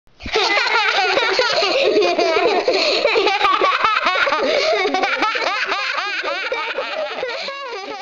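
Young children laughing and giggling, several high voices overlapping at once, fading out near the end.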